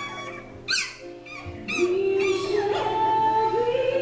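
Young puppies whining and yelping: several short, high, falling cries in the first two seconds, over background music with steady held notes that take over from about two seconds in.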